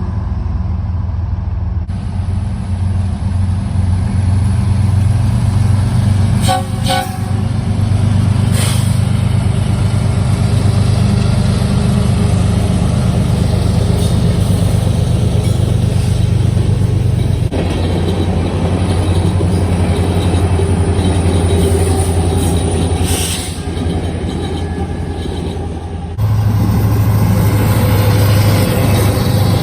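Freight train diesel locomotives and rolling cars running past, a loud steady low rumble, with a few brief sharp clanks along the way.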